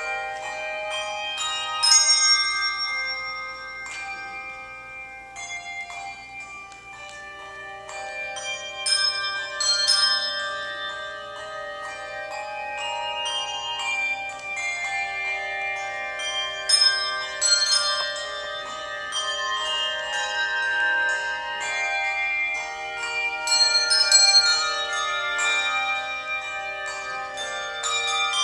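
Handbell choir ringing a piece: many handbells struck and left to ring, their notes overlapping into chords, with louder accented strikes at a few points.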